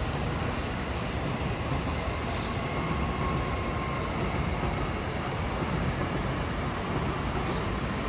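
A train running past a station platform: a steady rumble, with a faint thin whine a few seconds in.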